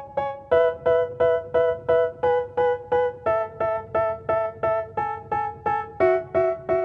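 Background music: a piano-like keyboard plays short repeated chords, about three a second, shifting to a new chord a few times.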